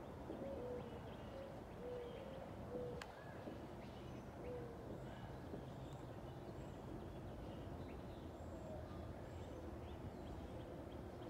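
Faint, steady low rumble of a Boeing 737-800 airliner passing high overhead, with short bird calls and a few high chirps over it, and a single sharp click about three seconds in.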